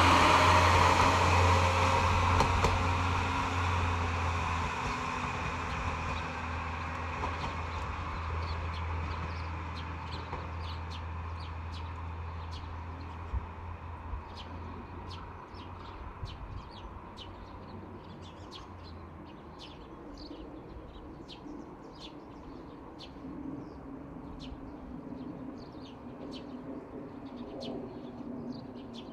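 Kanto Railway diesel railcar pulling away, its engine hum and wheel-on-rail noise fading steadily as it recedes until it is gone after about 20 seconds. Small birds chirp in short repeated calls from about 8 seconds in.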